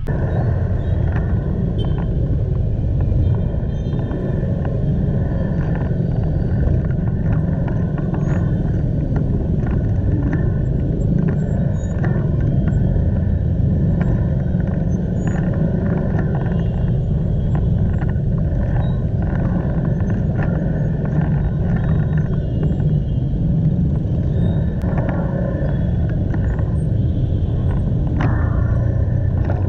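Steady low rumble of a Honda motor scooter and the road traffic around it, heard from the rider's own camera.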